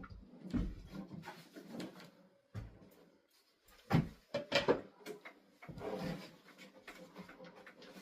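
Wooden knocks and clunks from handling assembled flat-pack furniture, with a quick run of loud knocks about four seconds in.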